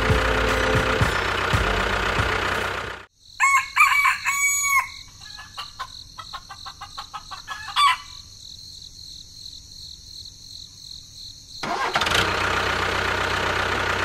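Background music breaks off and a rooster crows, followed by a run of short clucks. Then come a few quieter seconds with a faint steady high tone before the music comes back.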